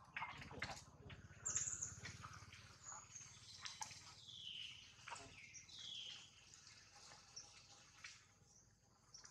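Faint birds chirping, with two clear falling calls in the middle, over soft rustling and clicks of dry leaves; a low hum runs under the first few seconds.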